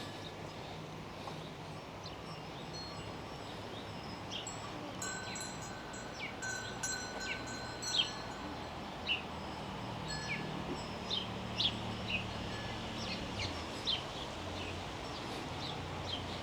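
Small birds chirping outdoors, with many short, quick, high calls that grow more frequent after the first few seconds. Faint ringing bell-like tones come in the middle, over a steady low hum.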